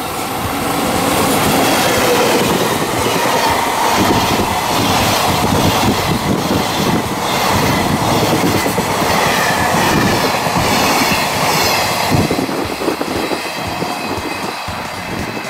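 A freight train hauled by an EF65 electric locomotive passes close by: the locomotive, then a long string of container wagons whose wheels clatter rhythmically over the rail joints. The clatter stays loud for most of the passage and eases off near the end as the last wagon goes by.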